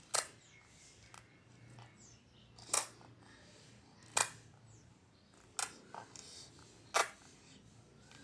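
A series of six sharp clicks about every one and a half seconds, one of them weaker, over a faint low hum.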